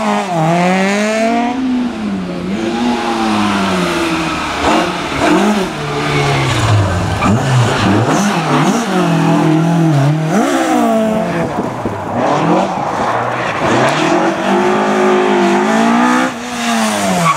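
Rally car engine driven hard, its pitch climbing and dropping over and over as it accelerates, shifts gear and lifts off for corners.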